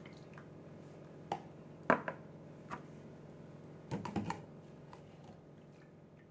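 A metal spoon clicking against thin plastic cups a handful of times, with a quick cluster of clicks about four seconds in, as ethanol is spooned onto chopped leaves. A steady low hum runs underneath.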